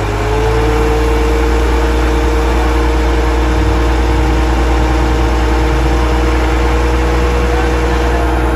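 An engine or motor running steadily with a low rumble and a steady hum. The hum rises slightly about half a second in, then holds even.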